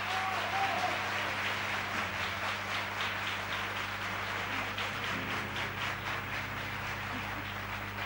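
Audience applauding, a dense clatter of clapping that eases slightly over the seconds, over a steady low hum. Faint held musical notes come in about five seconds in.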